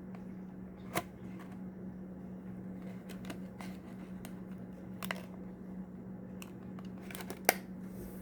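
A few sharp clicks and taps from a die-cast toy car being handled, the loudest near the end, over a steady low hum.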